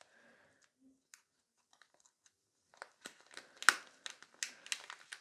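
Holographic plastic foil pouch crinkling and crackling as it is pulled open by hand. It starts nearly quiet, and a run of sharp rustles and crackles begins a little under three seconds in.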